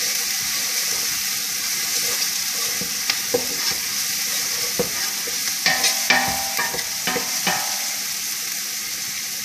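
Diced onions and garlic sizzling steadily in olive oil in a large stainless steel pot, with a wooden spoon stirring and scraping against the pot, most busily about six to seven seconds in.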